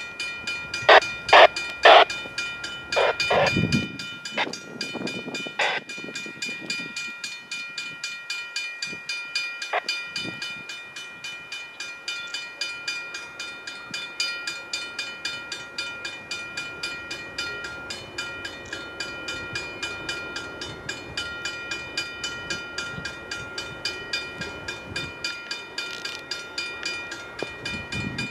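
Railroad grade-crossing bell ringing in a fast, even rhythm, warning of an approaching train, with several much louder strikes in the first few seconds.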